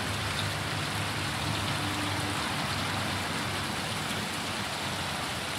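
Small rock waterfall splashing steadily into a koi pond, a continuous even rush of water. A faint low hum sits underneath and fades out about halfway through.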